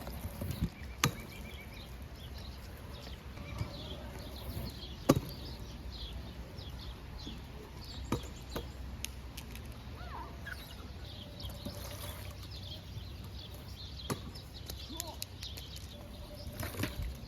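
Madd Gear scooter clacking on wet pavement during simple tricks: four sharp impacts spread through the stretch, the loudest about five seconds in, over a steady low rumble, with birds chirping throughout.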